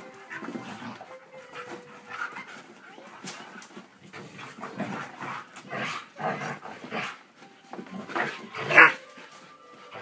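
Two Siberian huskies play-fighting, making a string of short, irregular dog vocal noises and panting, with one louder bark near the end.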